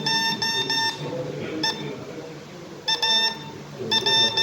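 Morse code being sent on a key through a practice oscillator: a steady beeping tone keyed on and off in dots and dashes. It comes in several letter groups with short pauses between them.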